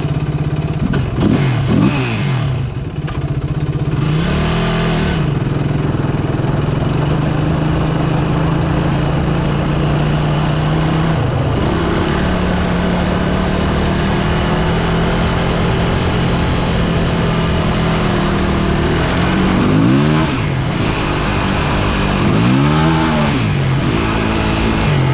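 Small off-road vehicle engine running steadily at low speed. It gives short revs that rise and fall about a second in, again about four seconds in, and twice near the end.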